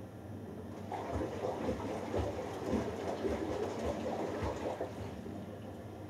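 Hoover Dynamic Next DXA610IW3 front-loading washing machine turning its drum during a rinse: water and wet laundry sloshing for about four seconds, starting about a second in, with several soft low thuds as the load drops.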